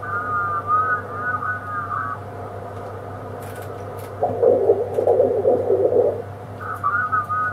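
Amateur radio transceiver's receive audio as the tuning knob is turned across the band: warbling, off-tune single-sideband voices high in pitch at the start and again near the end, a muffled stretch of voice-like chatter in the middle, and a steady hum underneath.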